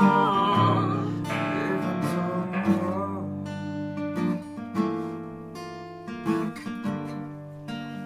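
Acoustic guitars strumming and picking notes, with a wavering sustained melody line over them in the first second; the playing thins out to separate strums and gets quieter toward the end.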